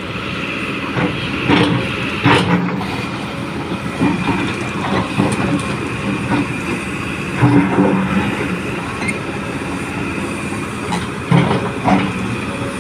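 Excavator working: its diesel engine runs steadily under load, with irregular metal clanks and knocks from the working machine, about six of them, as it digs out mud.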